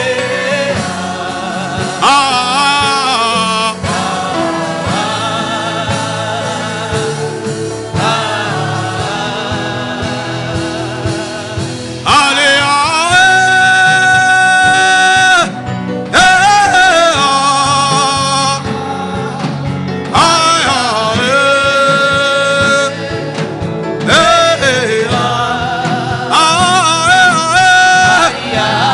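Gospel worship singing: a voice sings phrases with long held notes, about twelve and twenty seconds in, over a steady instrumental backing.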